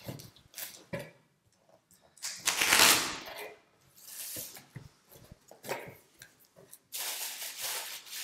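Packing tape torn off a cardboard shipping carton, the loudest rip about two and a half seconds in. Cardboard flaps and plastic bubble wrap rustle as hands dig into the box near the end.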